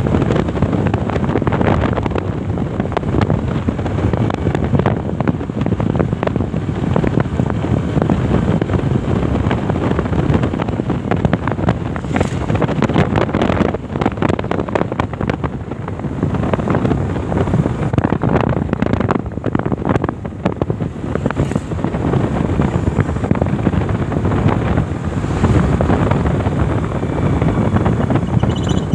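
Wind rushing over the microphone of a moving motorbike, a loud steady rumble with the bike's engine and road noise underneath.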